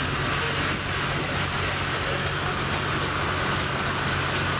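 Narrow-gauge train running steadily, heard from an open-sided passenger car: a steady low drone under an even rush of running noise.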